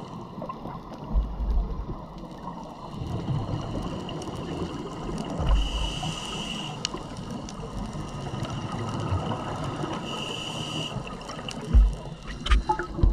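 Scuba diver breathing through a regulator underwater. There are two inhalations with a hissing whistle, about halfway and about ten seconds in, and between them the low, gurgling rumble of exhaled bubbles. A few sharp clicks come near the end.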